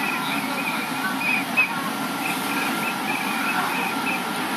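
Busy beach ambience: a steady wash of distant crowd chatter and surf, with short high chirps coming again and again.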